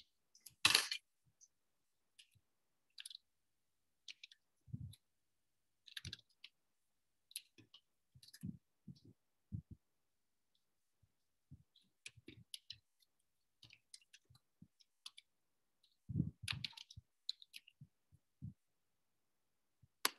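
Computer keyboard and mouse clicks while text is typed: sparse and irregular, with a louder clatter about a second in and another cluster near the end.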